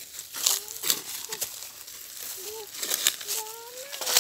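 Footsteps in sandals crunching through dry leaves and undergrowth, a few uneven steps, with short pitched calls between them, the longest one near the end.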